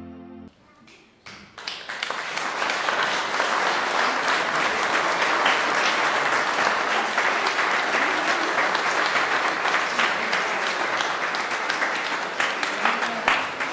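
A held chord of music cuts off just after the start. After a short pause, an audience breaks into applause about a second and a half in, which goes on steadily to the end.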